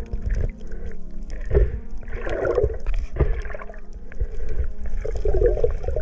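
Underwater camera sound of a freediver swimming: muffled water rushing and bubbling, with a few dull thumps. Faint background music runs underneath.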